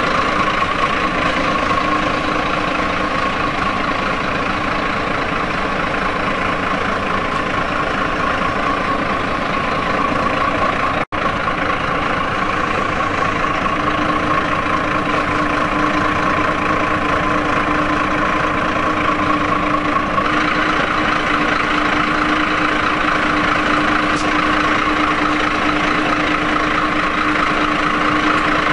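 IVECO truck's diesel engine idling steadily. The sound drops out for an instant about eleven seconds in.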